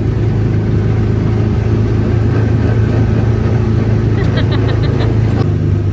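Theme-park ride vehicle running: a steady low mechanical hum with rushing noise, and a quick run of about six sharp clicks a little past four seconds in.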